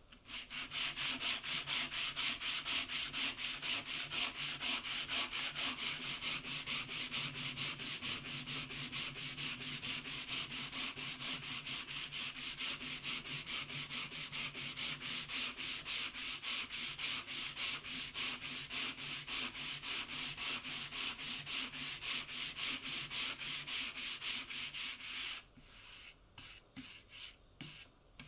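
Dry-sanding paper on a hand sanding block rubbed back and forth over a wooden board in quick strokes, about three a second. The rubbing stops about 25 seconds in, followed by a few lighter brushing strokes.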